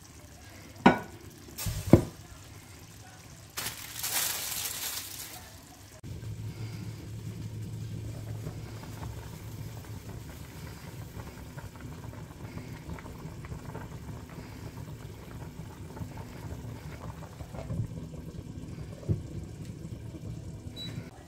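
A pan of water with ripe plantains at a rolling boil, bubbling steadily. There are a couple of sharp knocks and a brief hiss at the start, and two knocks near the end as a glass lid is set on the pan.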